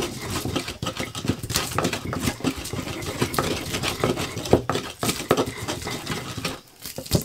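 Pestle pounding and grinding garlic and shallots in a mortar, a rapid irregular run of knocks and scrapes, with a knife tapping on a wooden cutting board as vegetables are sliced.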